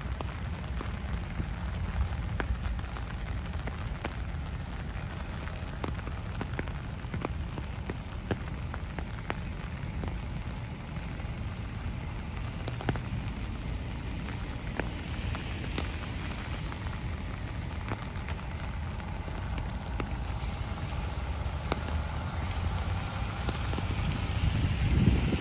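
Heavy rain falling, with many separate drops ticking over a steady low rumble. The rumble swells louder near the end.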